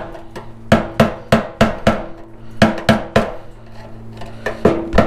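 Hammer striking a screwdriver to drive a fuel pump lock ring around on a fuel tank: about a dozen sharp metallic taps in three quick runs, with a pause of over a second before the last run, as the ring is knocked round into its locked position.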